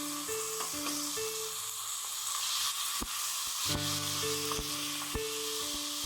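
Chicken pieces sizzling as they are stir-fried in hot oil over high heat, with a few sharp knocks of the utensil against the pan as they are stirred. Soft background music with a repeating note pattern plays underneath.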